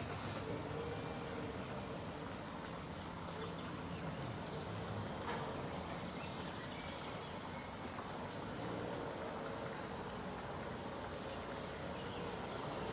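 A small songbird repeating short, high, descending phrases every few seconds over steady background noise.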